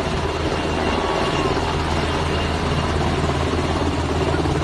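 HH-60 Black Hawk helicopter hovering: a steady, rapid rotor chop over a low engine drone, mixed with the even rushing hiss of the flooded river.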